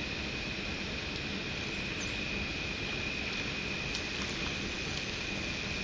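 Steady rush of water from a dam and the fast-flowing river outlet below it, with a thin steady high tone over it and a few faint ticks.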